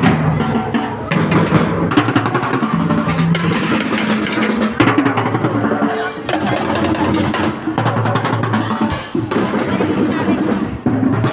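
Music with a prominent drum kit: bass drum and snare hits over a steady low bass line.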